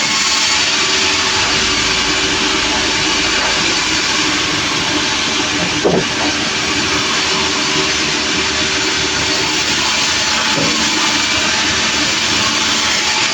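Engine-driven sawmill running steadily, its saw cutting through a log with a continuous loud hiss over the engine's hum. There is a brief louder sound about six seconds in.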